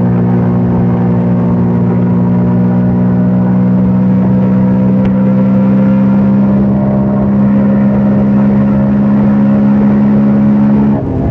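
CFMOTO Papio 125's single-cylinder four-stroke engine pulling at steady, slowly climbing revs under throttle. The engine note drops and changes near the end as the throttle eases or a gear changes.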